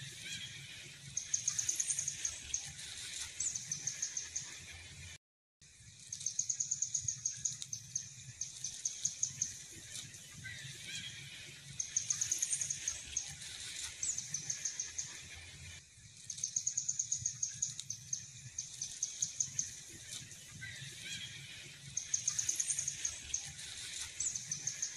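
A bird's high, rapid trilling call, repeated about every five seconds, with short high downward whistles, over a low steady outdoor rumble. The sound cuts out briefly about five seconds in.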